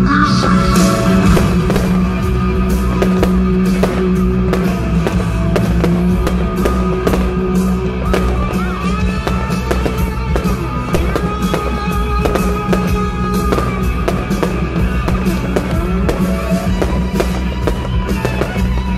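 Show music playing, with fireworks going off over it as many short sharp pops and crackles spread through the whole stretch.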